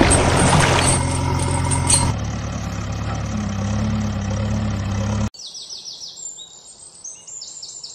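A steady engine idling hum, louder and noisier for the first two seconds, that cuts off abruptly a little over five seconds in. After it, small birds chirp in quick repeated falling calls.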